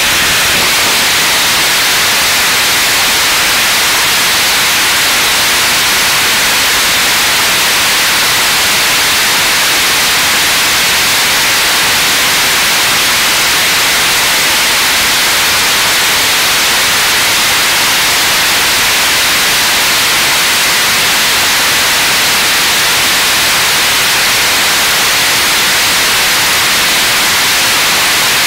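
Launcher E-1 3D-printed, regeneratively cooled rocket engine firing steadily on a test stand: a loud, even, hissing rush that does not change in level.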